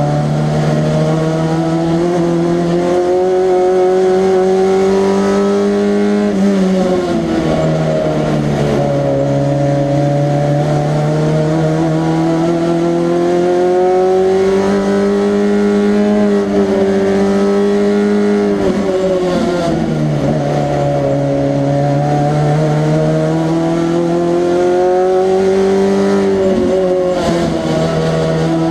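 A race car's engine under hard load, its pitch climbing steadily through long pulls. The pitch drops sharply three times, about six, nineteen and twenty-seven seconds in, as the driver lifts and shifts down, then it climbs again.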